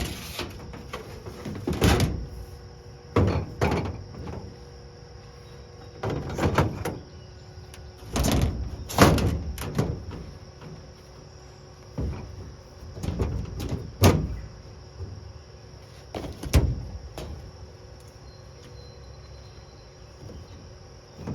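Intermittent knocks, clunks and rattles, about seven short bursts with pauses between, as metal car-body parts and tools are handled and fitted.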